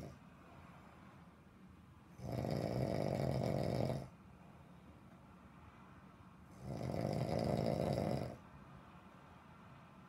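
A man snoring deeply in sleep: two long snores, each nearly two seconds, about four and a half seconds apart, with quiet gaps between.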